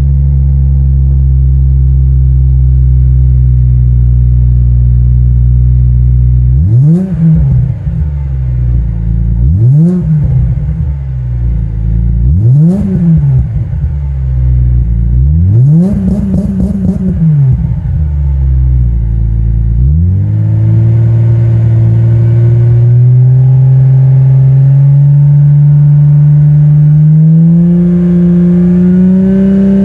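2018 Subaru Legacy 3.6R's flat-six engine and exhaust idling steadily, then revved in four quick blips that each rise and fall back. About two-thirds of the way in, the revs begin climbing slowly and steadily from idle.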